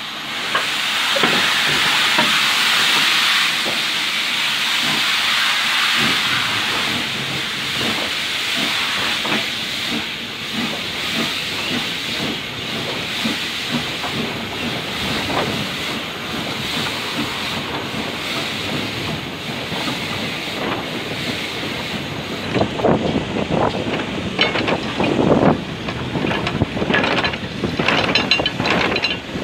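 Heritage railway carriage running along the track, heard from an open window: a steady hiss over the running of the wheels, strongest in the first few seconds, with irregular clattering and clanking near the end.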